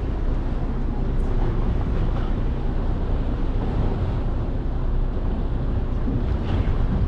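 Steady wind rushing over the microphone with the low rumble of a whale-watching boat underneath.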